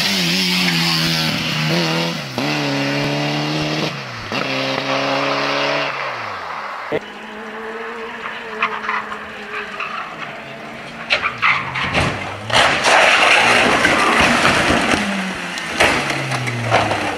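Peugeot 205 rally car engine revving hard, its note climbing and breaking off at each gear change. After that, a second rally car crashes: a run of sharp knocks, then a few seconds of loud noise as it tumbles and scrapes along the road.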